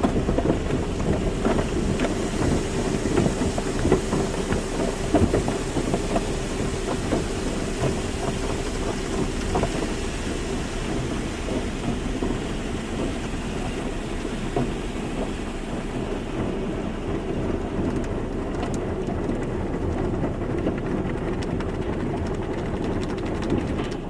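Car wash water jets spraying and pattering against a car, with a steady machine hum through the first half.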